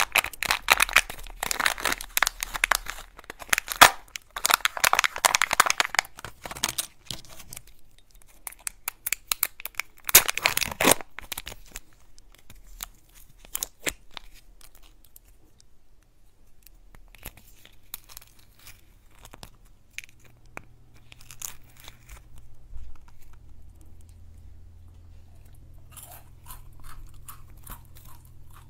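Crinkling and tearing of the foil and paper seals being peeled off the plastic halves of a Kinder Joy egg. This is densest for the first several seconds, with another loud crackle about ten seconds in. After that come softer, scattered crunches and crackles.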